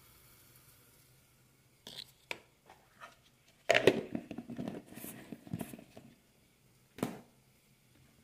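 Kitchen handling sounds: a few light clicks, then a louder burst of plastic clatter and rustling about halfway through as the blue lid of a plastic container is worked, and one sharp click near the end.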